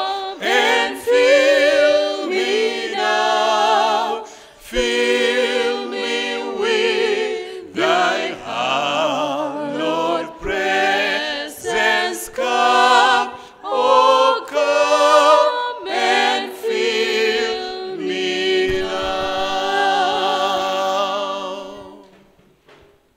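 Small group of voices, men and a woman, singing a hymn a cappella in harmony. It ends on a long held chord that fades out near the end.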